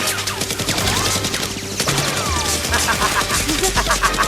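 Sustained rapid gunfire, many shots a second like automatic weapons, from a staged Nerf gun fight.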